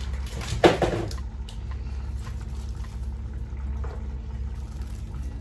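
Water poured briefly, a short loud splash about half a second in, over a steady low hum.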